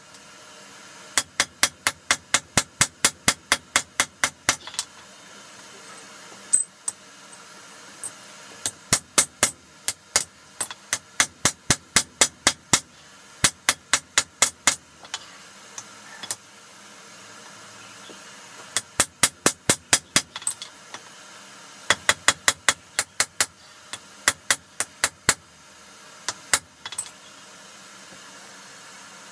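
Hand hammer striking a red-hot steel hammer head on an anvil in runs of quick blows, about four a second, with short pauses between runs and the anvil ringing after each blow. The ends of the head are being dressed into shape for a rounding hammer.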